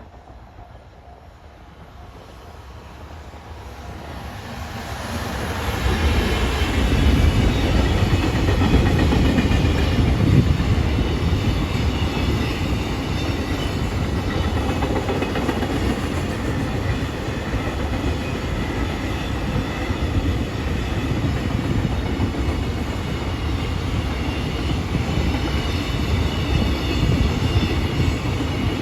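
A train approaching, growing louder over about six seconds, then passing close by with a steady rumble and clatter of wheels on the rails.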